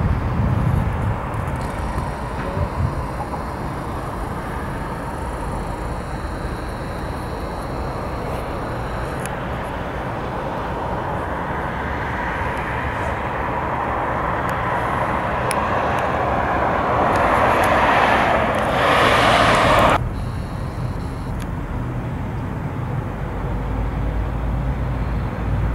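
Vehicle noise: a steady rumble that grows louder over about ten seconds and then cuts off suddenly about twenty seconds in, leaving a quieter steady background.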